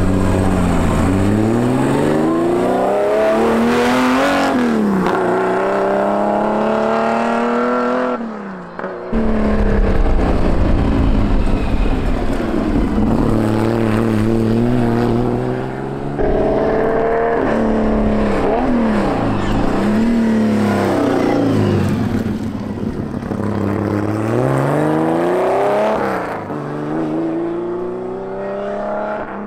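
Competition car engines accelerating hard up a hill-climb course, the pitch climbing through each gear and dropping back at each shift. The sound breaks off sharply about nine seconds in and another run at full throttle follows, with several more gear changes.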